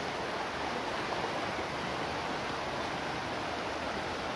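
Fast-flowing river rushing over rocks: a steady, even rush of water.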